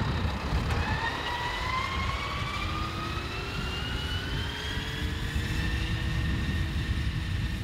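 Tractor running with its rear-mounted grass mower: a steady low engine rumble, with a faint whine that rises slowly in pitch over several seconds.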